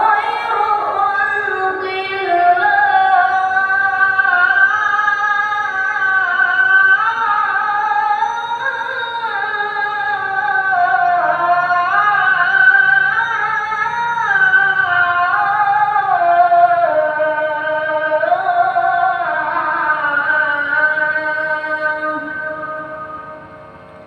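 Background music: a slow melody carried by a singing voice over sustained chords, fading out near the end.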